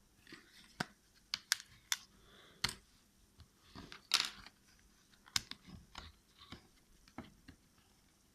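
Sharp, irregular plastic clicks and snaps as a guitar pick and opening tools pry apart a Meizu M2 Note smartphone's housing, its clips giving one by one. The loudest snap comes about four seconds in.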